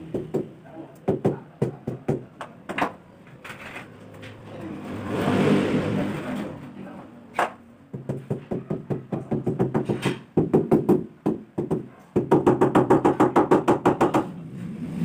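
Rapid runs of repeated knocking, about five knocks a second, broken by short pauses, with a brief rushing noise about five seconds in.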